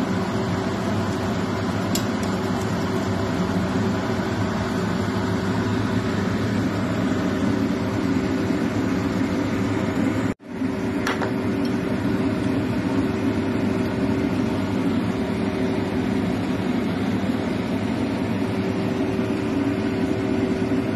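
A steady machine hum with a constant tone under an even rushing noise. It cuts out for an instant about ten seconds in, then carries on unchanged.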